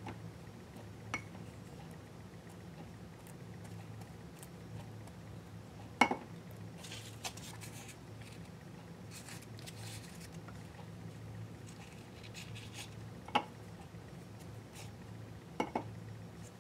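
Hand craft work with Mod Podge and torn paper: faint brushing and paper rustle, broken by a handful of sharp taps of hard objects on the work surface, the loudest about six seconds in. A low steady hum runs underneath.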